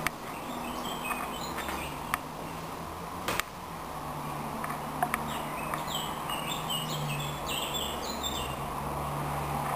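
Songbirds singing in the surrounding trees: a run of short repeated chirping notes starting about halfway through and lasting some three seconds. Underneath runs a steady low hum, with a few sharp clicks in the first half.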